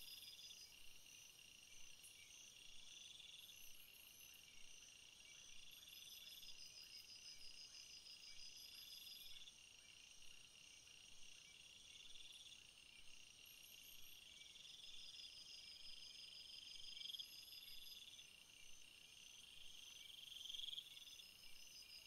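Faint chorus of crickets chirping: several overlapping high-pitched pulsing songs, one of them swelling into a longer trill every two or three seconds.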